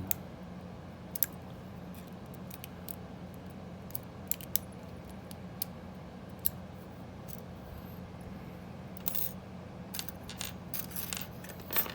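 Scattered small metallic clicks and scrapes of a lock pick and tension wrench working in the tiny keyway of a brass padlock. A brief scrape comes about nine seconds in, and the clicks grow denser near the end.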